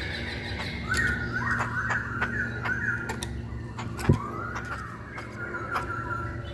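Hongkong poksay (masked laughingthrush) singing a run of repeated whistled phrases, with a short rising-and-falling whistle about four seconds in. A sharp knock comes about four seconds in, and a steady low hum runs underneath.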